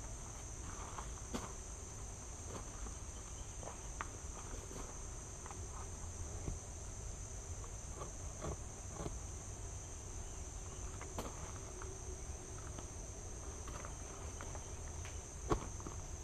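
Steady high-pitched insect chorus, with scattered faint clicks and knocks of handling and one sharper knock near the end.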